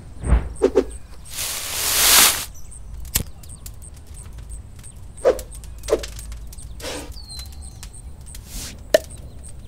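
Sound effects for an animated logo intro: a loud whoosh about a second and a half in, scattered clicks and a few short knocks, and a faint steady high-pitched pulsing underneath, with a brief falling whistle-like tone near the end.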